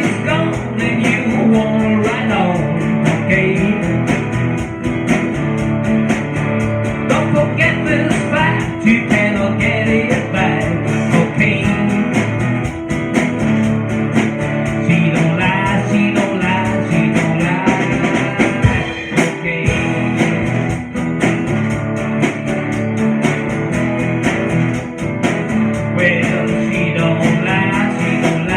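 Live band playing a guitar-driven blues-rock song, loud and continuous.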